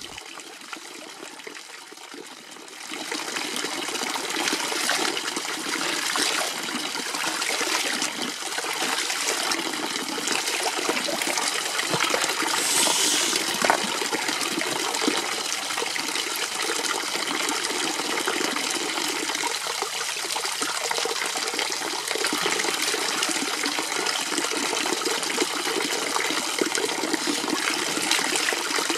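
Water from a village fountain's spout running and splashing into a stone trough, a steady rush of water that grows louder about three seconds in.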